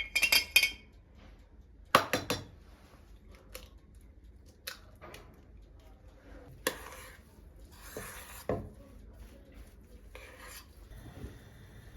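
Dishes and cutlery clattering as they are handled. There are quick bursts of ringing clinks at the start and about two seconds in, then lighter knocks and short scrapes.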